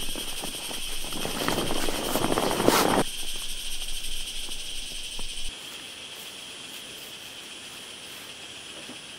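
Crackly rustling of fabric and clothing being handled for about three seconds, stopping suddenly, then a few soft clicks. A steady high insect chorus runs underneath.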